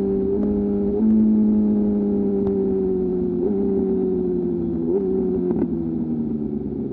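BMW S1000RR inline-four through an Austin Racing GP1R full exhaust, off the throttle and engine braking as the bike slows, revs falling steadily with brief rises in pitch at each downshift. A few sharp clicks are heard about two and a half and five seconds in.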